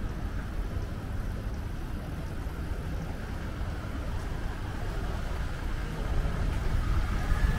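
Diesel truck engines running in slow city traffic, a low rumble that grows louder about six seconds in, over the noise of passing vehicles.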